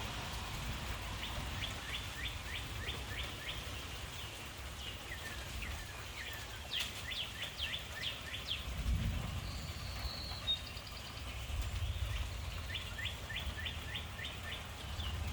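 Songbird singing: three runs of quick, evenly spaced downslurred chirps, with a short high whistle between them, over a steady low background rumble.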